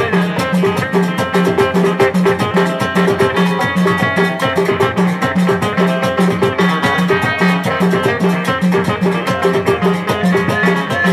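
Amazigh (Souss) group music in an instrumental passage with no singing. Electric guitar plays a repeating low figure over metal castanets (qraqeb) and hand and frame drums, all keeping a fast, even beat.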